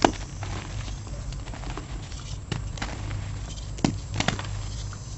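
Blocks of dyed gym chalk crushed and crumbled by hand, crunching and crackling, with sharp snaps as pieces break. The loudest snap comes right at the start, and more follow about two and a half and four seconds in.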